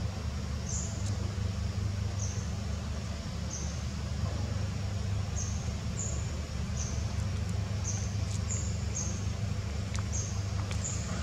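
Short high-pitched chirps, each slightly falling, repeat about once a second over a steady low hum.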